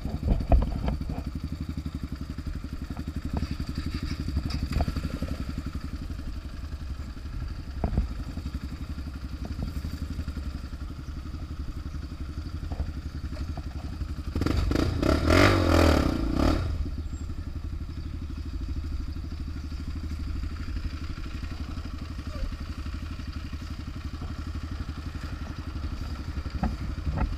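Motorcycle engine idling steadily, heard from the rider's seat, with a louder surge of engine noise lasting about two seconds midway.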